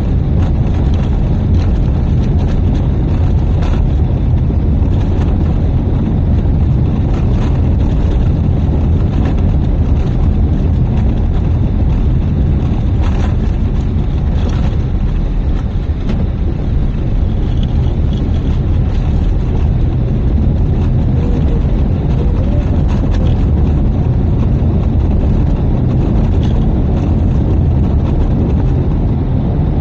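Car interior noise while driving a rough, patched road: a steady low rumble of tyres and engine, with a few faint knocks from bumps in the surface.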